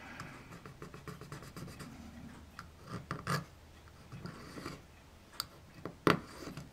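A fingernail scraping across painted brass photo-etch to test whether the paint has bonded: a run of small scratches and ticks, with a sharper click about three seconds in and the loudest one about six seconds in.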